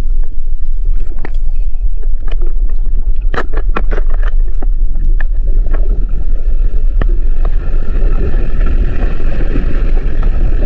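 Loud, deep rumble aboard a boat, with a cluster of sharp rattling knocks about three to four seconds in and a steadier higher hum joining from about seven seconds. The uploader presents the shaking as an underwater earthquake.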